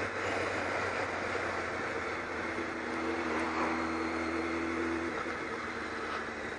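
Kawasaki ZX-12R's inline-four engine running at a steady cruise under a wash of wind and road noise on a bike-mounted microphone; its steady note changes about five seconds in.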